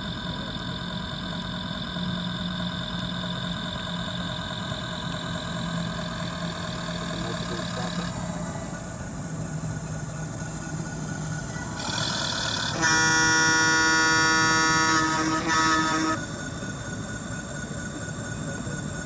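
Simulated tugboat engine sound from an RC model tug's home-made Arduino sound module, played through its small amplified speaker and running steadily. The engine note thins a little before a ship's horn from the same module sounds one long blast of about three seconds, about two-thirds of the way through.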